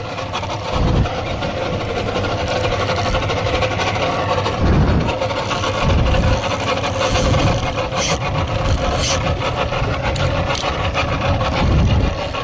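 A boat's outboard motor running steadily under a rough, rasping mechanical noise, with gusts of wind buffeting the microphone in low rumbles several times.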